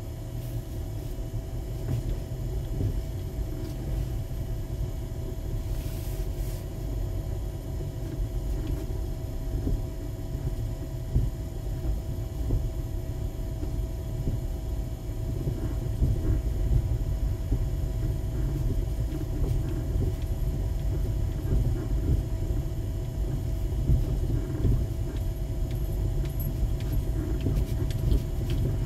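Car driving on a snow-covered road, heard from inside the cabin: a steady low rumble of engine and tyres, with a faint steady whine on top. It gets a little louder about halfway through.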